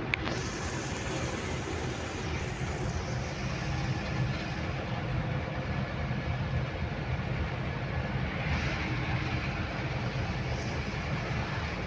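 Steady engine and road drone inside a truck's cab moving at highway speed, with a single sharp click just after the start.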